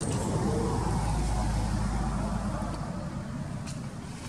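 Steady outdoor background noise with a low rumble that eases off about three seconds in.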